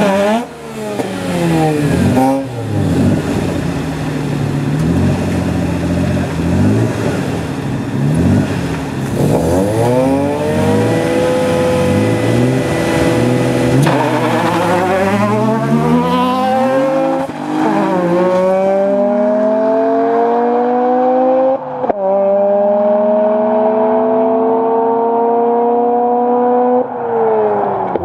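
Nitrous-fed Mazda RX-8 rotary and Nissan 300ZX twin-turbo V6 revving up and down at the start line. About halfway through they launch and accelerate hard, engine pitch climbing steadily and dropping at each upshift, about three shifts.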